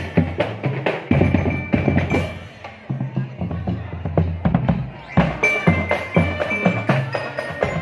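Marching drum band playing: a dense run of snare and bass drum hits under a bell-like melody, likely from a glockenspiel-type bell lyre, with sustained low notes beneath.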